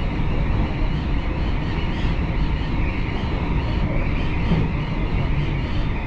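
Steady running noise of a JR Hokkaido Rapid Airport electric train at speed, heard from inside the passenger car.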